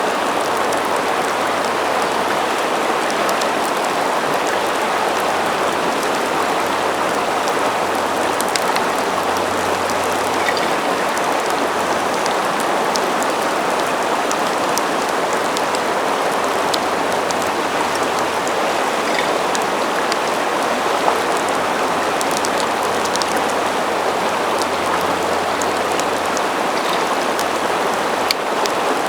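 River water rushing steadily, with scattered faint ticks over it.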